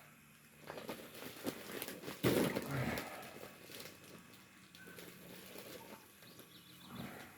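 Irregular rustling and splashing from a plastic shipping bag of tilapia fry being handled in the tank water, loudest about two seconds in, with scattered light clicks.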